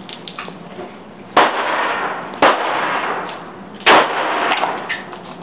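Three pistol shots fired about one and one and a half seconds apart, each a sharp crack followed by about a second of echo off the range.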